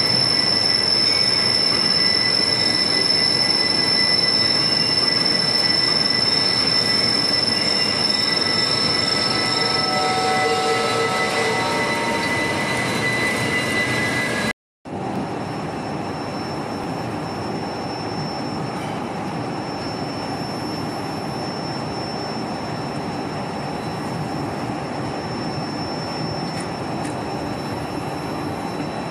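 Large machine tool cutting a toothed steel slewing-bearing ring: a loud, steady mechanical noise with a high, steady whine. About halfway through it cuts off abruptly and gives way to a quieter steady machine noise with a fainter whine.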